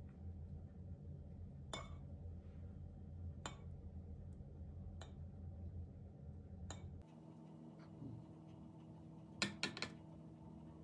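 Metal spoon stirring a thick yogurt-and-mayonnaise dressing in a ceramic bowl, clinking against the bowl: a few spaced single clinks, then a quick cluster of clinks near the end, the loudest sound. A low background hum stops about two-thirds of the way in.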